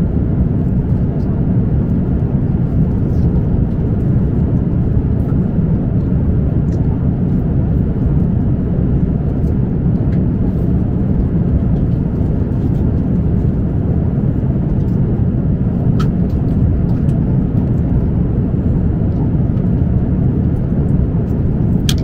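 Steady jet airliner cabin noise in flight: a constant low rush of engine and airflow, with a few faint clicks.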